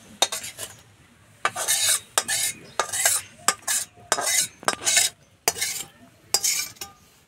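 A metal spoon scraping thick tomato chutney out of a metal kadai into a bowl: a dozen or so short, sharp scrapes and clinks of metal on metal in quick, uneven succession.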